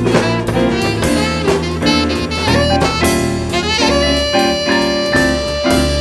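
Jazz combo playing an instrumental passage: tenor saxophone leading over keys, bass and drums, with a long held note through the second half.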